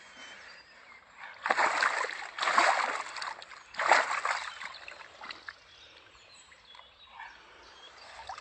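Water splashing in three short bursts, about one and a half, two and a half and four seconds in, around a big carp being handled on the bank.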